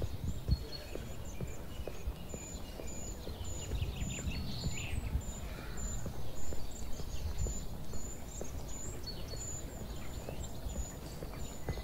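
Songbirds calling, one repeating a short high note about twice a second among other brief chirps, over an uneven low rumble with occasional thumps.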